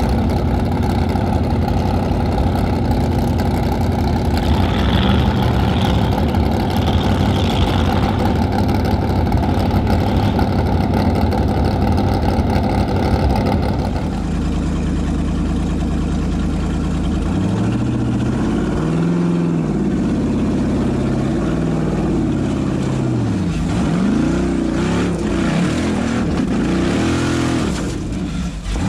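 Formula offroad racing car's engine running hard. The drone holds steady for about the first half, then changes abruptly and the engine is revved up and down again and again, its pitch rising and falling repeatedly.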